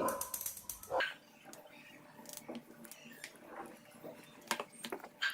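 Spoon scraping and clicking against a mixing bowl as thick cake batter is scooped out, with scattered light knocks and a sharper click or two near the end.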